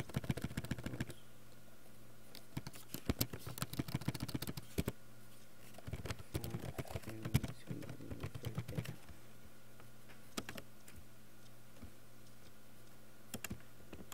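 Computer keyboard typing in three quick bursts with short pauses between them, followed by a few single clicks near the end.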